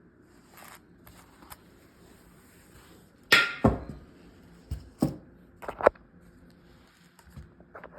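Sharp clicks and knocks from a championship belt's metal snap fasteners being handled: two loud clicks close together a little past a third of the way in, then a few more in quick pairs over the next two seconds, with faint ticks near the end.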